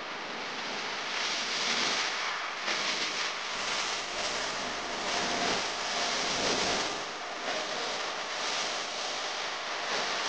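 Steady rushing water of a flowing stream, swelling and easing a little.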